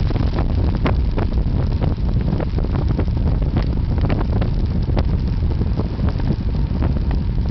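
Wind buffeting the microphone of a camera on a moving road bike: a steady low rumble with many small clicks and rattles scattered through it.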